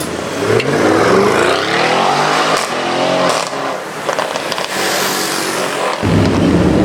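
Audi RS6 C7's twin-turbo V8 through a Milltek exhaust accelerating hard, its note rising in pitch as it revs, with a few sharp cracks along the way. Near the end the sound changes suddenly to a deeper, heavier engine rumble.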